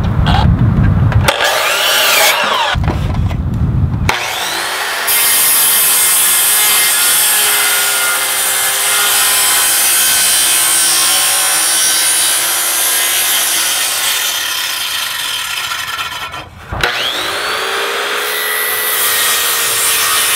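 Corded circular saw running and cutting into a pine 2x rafter board, making shallow passes for a bird's-mouth notch. After two short loud bursts at the start, the saw runs steadily. Near the end it briefly stops, then spins back up and cuts again.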